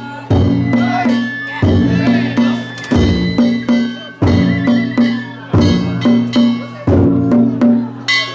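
Danjiri festival music: a drum struck in a steady beat about once every second and a third, with gongs ringing over it.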